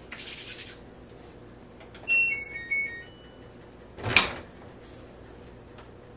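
A front-loading laundry machine plays a short tune of electronic beeps stepping down in pitch, the signal that its cycle is done. About four seconds in, its door latch is pulled open with one sharp click. At the start there is a brief rub of hands.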